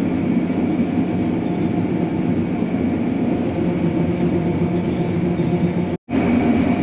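John Deere S670 combine running steadily at working speed: a constant engine and machinery drone with a thin, high, steady whine over it. The sound breaks off for an instant near the end.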